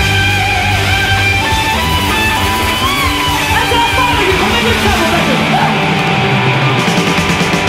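Rock music with guitar, an instrumental passage with a melodic line that bends up and down in pitch.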